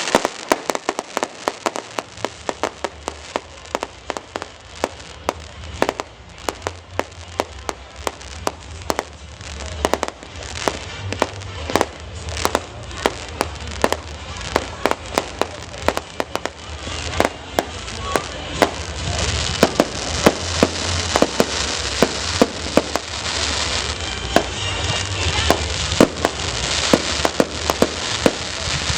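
Fireworks display: a rapid series of sharp bangs with crackling, growing denser and louder in the second half, with music playing underneath.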